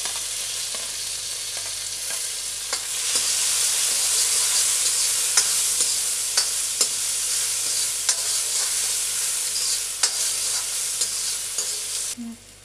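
Chopped tomatoes and onions sizzling in hot oil in an iron kadhai, stirred with a steel ladle that clicks and scrapes against the pan now and then. The sizzle dies down near the end.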